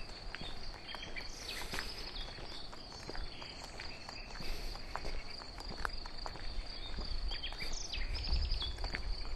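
Crickets chirring in a steady, unbroken high trill, with a few short bird calls and soft footsteps on a path.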